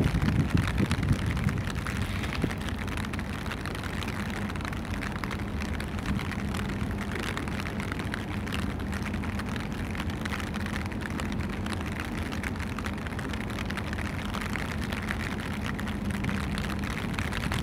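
Steady low hum and rumble of the passing container ship YM Efficiency's machinery, under an even rushing noise that is a little louder for the first second or two.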